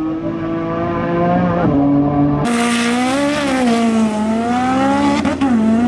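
Drag car engine held at high revs, its pitch holding steady and then wavering up and down as the throttle is worked. About two and a half seconds in the sound jumps abruptly to a brighter, closer take.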